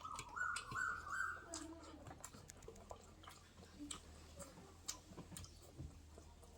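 A person chewing food close to the microphone, with small wet mouth clicks and smacks scattered throughout. In the first second and a half there is a short whine-like sound that steps up in pitch a few times.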